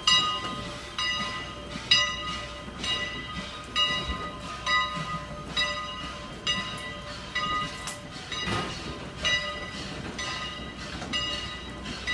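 Canadian National 89 steam locomotive's bell ringing steadily, about one clang every three-quarters of a second, each stroke ringing on and fading before the next.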